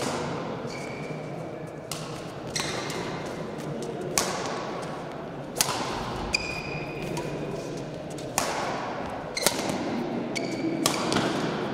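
Badminton rackets striking a shuttlecock in a rally: about ten sharp hits, roughly a second apart and unevenly spaced. Several hits are followed by short high squeaks of shoes on the court, over a steady murmur of voices.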